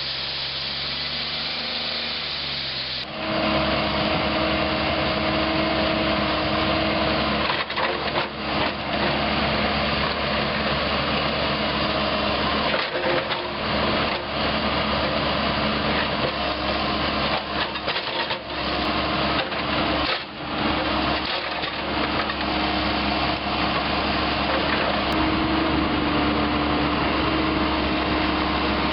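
A steady hiss, then about three seconds in an engine-driven machine starts running steadily with a few held tones, briefly dipping now and then.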